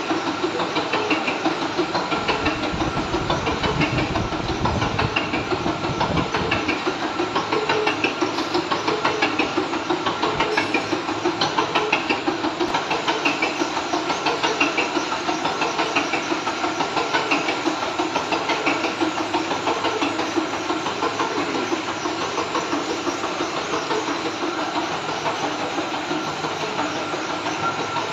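Metal lathe running steadily, a mechanical hum with a fast, even pulsing and a steady whine, with a deeper rumble for a few seconds about two seconds in.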